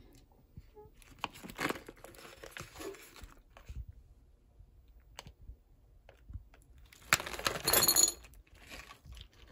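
Plastic cat-food pouches crinkling as they are handled, in two bouts, the louder one about seven seconds in.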